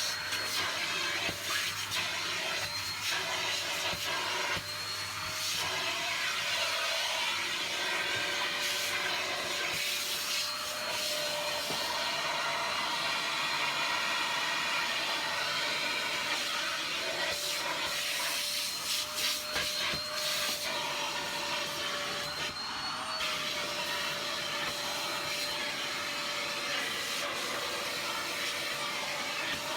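Vacuum cleaner running on a floor: a steady motor whine over a rush of air, its pitch wavering slightly a few times.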